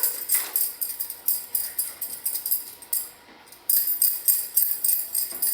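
Bracelets on a wrist jingling in quick rhythmic clinks, about four a second, as the arm makes brushing strokes. They stop briefly about three seconds in, then start again.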